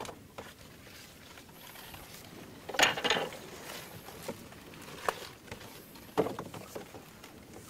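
Scattered clicks and knocks of bamboo poles being handled among lotus plants. The loudest is a short clatter about three seconds in, with a few lighter knocks later.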